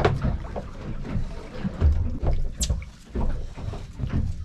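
Sea water lapping and slapping against the hull of a small boat, with an uneven low rumble.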